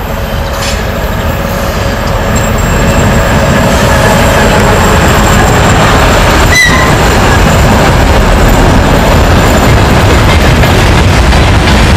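Twin-section 2M62 diesel locomotive passing close by under load, its two-stroke V12 diesel engines running loud. The sound grows over the first few seconds as it nears, then holds steady.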